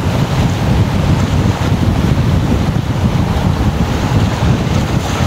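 Strong gale-force storm wind buffeting the microphone in a loud, steady low rumble, over choppy, whitecapped lake water.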